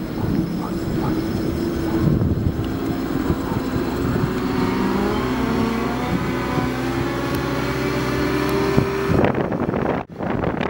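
Cat 907H compact wheel loader's diesel engine running under load as it drives across sand carrying a long steel pipe on its forks, the engine note rising and falling. The sound changes abruptly about nine seconds in.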